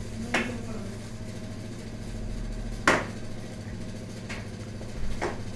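Four sharp knocks of kitchen utensils against the counter while chapati dough is rolled out and handled, the loudest about three seconds in, over a steady low hum.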